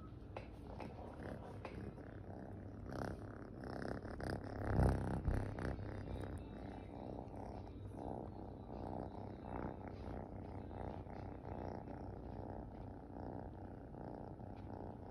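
Orange tabby kitten purring steadily close to the microphone, a continuous train of rhythmic pulses. A couple of louder muffled bumps stand out about five seconds in.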